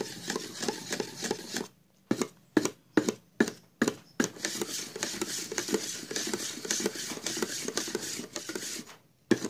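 A wooden stick stirs thick black paint in a metal paint can, scraping against the tin's side and bottom. About a second and a half in, the stirring breaks into a run of about six short, sharp strokes, roughly two a second. Steady scraping stirring then resumes.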